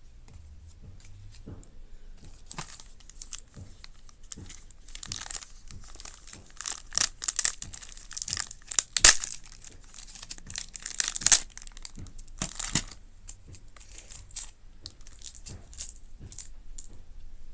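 Thin clear plastic bag crinkling and rustling as it is worked off a plastic toy train car, with a run of sharp crackles in the middle that thins out to scattered light crinkles near the end.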